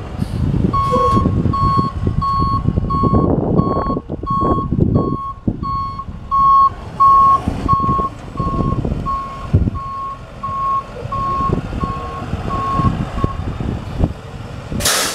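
Backup alarm on a 2009 International DuraStar bucket truck beeping steadily, about one and a half beeps a second, over a low rumble. The beeping stops a couple of seconds before the end.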